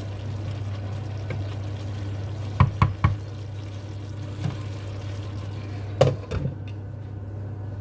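Stew being stirred in a pan with a wooden spoon, with a quick run of knocks about two and a half seconds in, then a glass pan lid set down with a clack about six seconds in. A steady low hum and hiss runs under it all.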